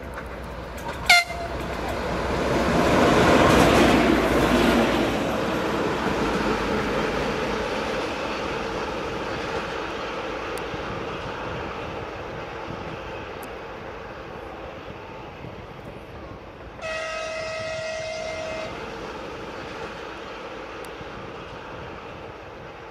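TEP70BS diesel passenger locomotive with its V16 diesel engine passing close, running light: a brief sharp toot about a second in, then engine and wheel noise swelling to a peak about three to four seconds in and slowly fading as it draws away. Near the end it sounds its horn as one steady blast of about two seconds.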